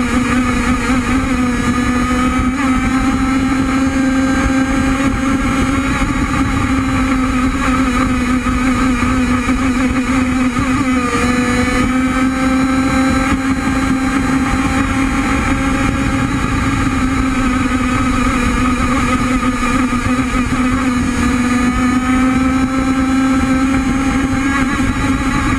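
Onboard sound of an RC hydroplane's gas two-stroke engine running at high, nearly steady revs over a rush of water and wind. The pitch sags briefly a little before halfway, then climbs again near the end.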